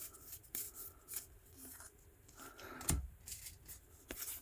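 Trading cards being slid one over another in the hand as a pack is flipped through: soft, quick swishes and small ticks, with one louder thump about three seconds in.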